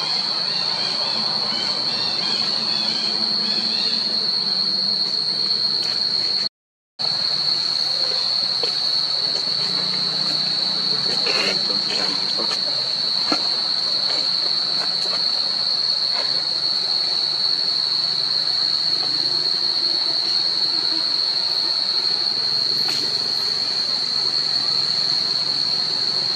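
Steady, high-pitched drone of cicadas, with birds chirping over it in the first few seconds. The drone cuts out for about half a second some six seconds in, then carries on unchanged.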